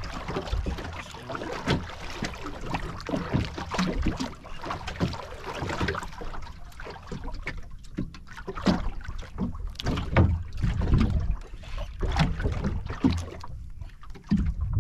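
Sea water slapping and sloshing against the hull of a small outrigger boat in irregular bursts, with wind buffeting the microphone.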